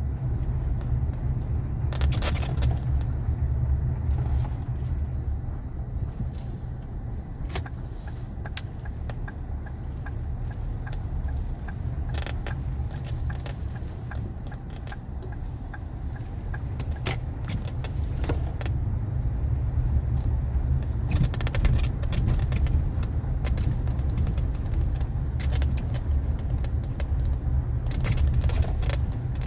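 Strange squeak inside a Ford Mondeo Mk4's cabin: short creaks and clicks from the interior come and go over the steady low rumble of the moving car, several in quick succession about two-thirds of the way in and again near the end.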